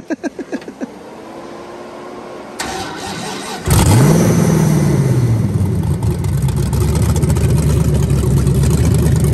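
LS V8 engine in a VW Bug sandrail being cranked and started. It catches with a sudden loud burst about four seconds in, flares and drops back, then settles into a steady idle.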